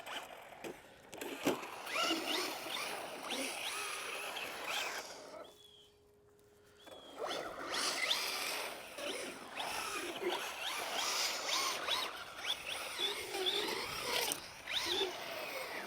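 Electric RC car creeping along, its motor whining up and down in pitch with short blips of throttle. It goes quiet briefly about six seconds in, leaving only a faint steady hum, then the whining resumes.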